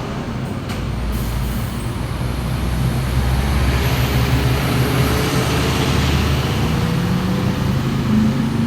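Diesel engine of a Hino 500 truck running steadily, growing a little louder about three seconds in, with a higher steady note joining near the end.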